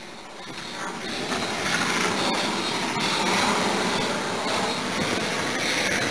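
Helicopter flying overhead, growing louder over the first second and a half and then holding steady.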